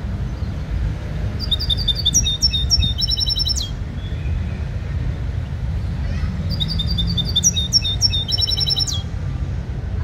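A songbird singing the same short phrase twice, about a second and a half in and again about six and a half seconds in: a run of quick, high, falling notes ending in a fast trill. A steady low rumble underlies it.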